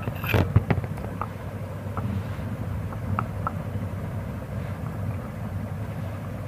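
Kitchen things being handled: a few sharp knocks and clatters about half a second in, then scattered light taps as a heavy black stone mortar is shifted onto a folded cloth, over a steady low hum.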